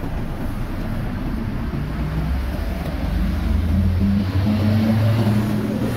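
Road traffic, with a vehicle's low engine drone that grows louder from about two seconds in and is loudest near the end.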